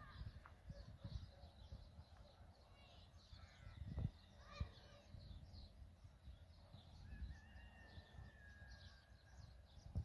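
Faint chirping of many small birds, over low rumbling and a thump about four seconds in. A steady tone holds for about two seconds near the end.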